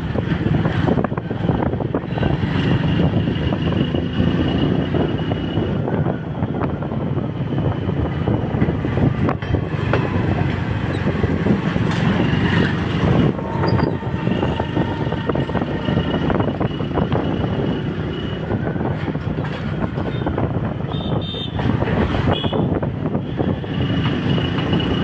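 Steady running noise of a motorbike ridden alongside a moving passenger train, mixed with the rumble of the coaches rolling on the track. A faint high steady tone comes and goes a few times.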